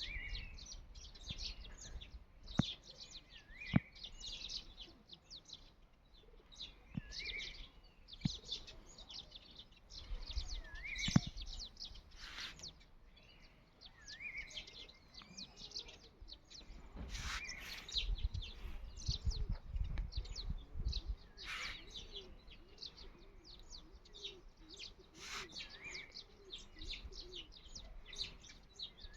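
Several birds chirping and singing together, with one bird repeating the same short rising-and-falling phrase every three to four seconds. A few sharp clicks stand out, and a low rumble comes in about two-thirds of the way through.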